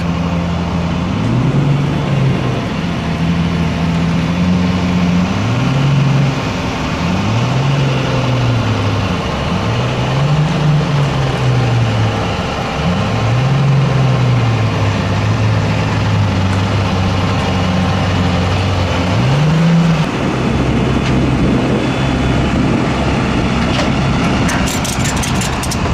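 Pagani Huayra BC's twin-turbo V12 running at low speed, its pitch rising and falling again and again in slow swells of about two seconds each as it is gently revved. About twenty seconds in, the swells stop and it settles into a steady idle.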